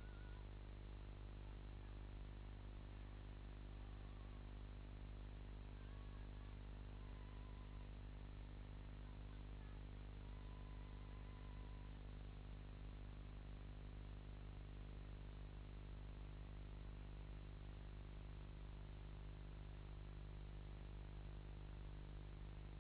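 Faint steady low hum and hiss with no distinct event: the sound track's background noise.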